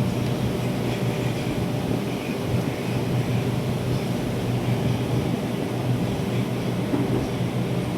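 Steady low mechanical hum of running machinery, one constant droning pitch that does not change.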